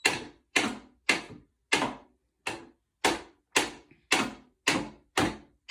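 Steady rhythmic knocking, about two sharp knocks a second, each ringing briefly before the next.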